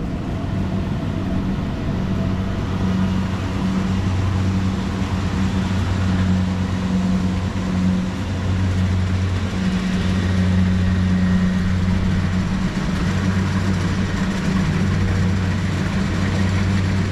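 Tracked rice combine harvester running steadily: a low engine hum that swells and eases every second or two.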